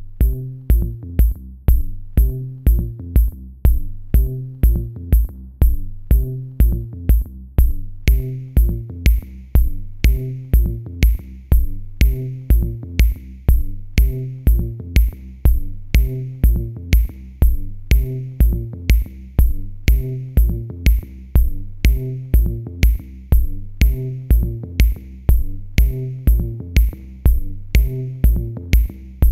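Electronic background music with a steady drum-machine beat, about two bass-drum hits a second, with a clap-like hit joining about a third of the way in.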